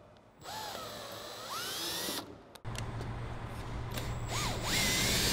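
Cordless drill turning an M5 tap to cut threads in holes drilled in the steel body of a Toyota Land Cruiser Troopcarrier. It runs in two goes with a short stop about two seconds in, its motor whine rising and falling in pitch as the trigger is eased on and off, and the second run is louder.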